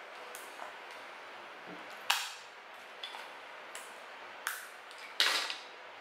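Clear adhesive tape being pulled off the roll and torn: several short, sharp rips, the loudest about two seconds in and near the end.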